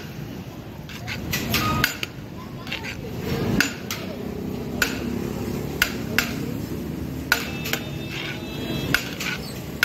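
A metal scoop scraping and clinking against a large steel tray of chicken biryani as rice is dished out, with irregular sharp clinks about once a second.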